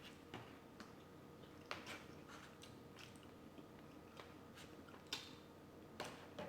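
Faint, close-up chewing and biting of food, with scattered soft mouth clicks and small crunches.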